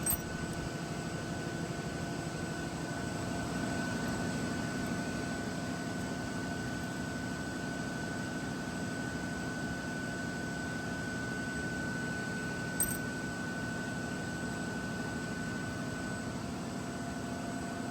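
Steady machine hum with a thin high whine that stops shortly before the end, and a faint click about thirteen seconds in.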